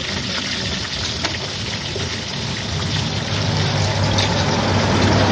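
A steady hissing noise, with a low hum building in over the second half and a few faint clicks.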